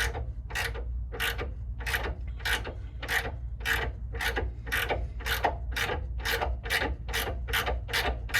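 Hand ratchet wrench clicking through short, even back-and-forth strokes, about two a second, as a nut is run down a long suspension bolt by hand.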